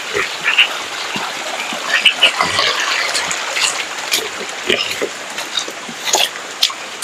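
Steady rain falling on a muddy, flooded farmyard, with close drips and splashes into puddles and water barrels. A pig grunts now and then.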